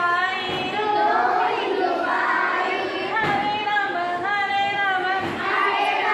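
A group of young children singing an action rhyme together in chorus, led by a teacher, in short sung lines with held notes.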